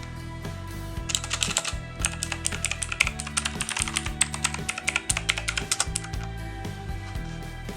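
Typing on a Cosmic Byte wireless mechanical keyboard: rapid key clicks starting about a second in and running for about five seconds, over background music.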